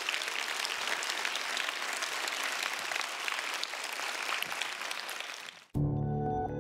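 Audience applauding. Near the end the clapping cuts off abruptly and instrumental music begins.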